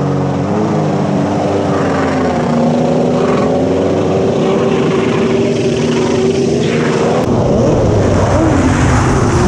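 Kawasaki 650SX stand-up jet ski with a swapped-in 1100cc three-cylinder two-stroke engine running hard at high revs, loud and steady, its pitch wavering a little as it goes.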